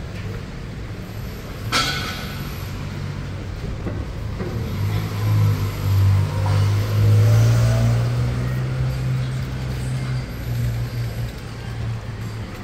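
Heavy road vehicle's engine, a deep steady hum that swells over a few seconds and then eases off as it passes in street traffic. A short sharp hiss comes about two seconds in.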